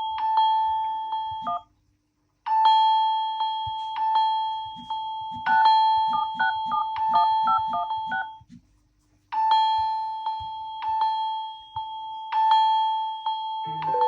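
Mobile phone ringtone playing a bell-like electronic chime: ringing struck notes and a short run of quicker notes, looping about every seven seconds with brief silent gaps. A different tone cuts in right at the end.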